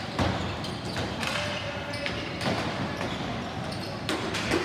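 Ball hockey game sounds: sticks knocking on the ball and the floor, several sharp clacks spread across a few seconds over the rink's steady background din.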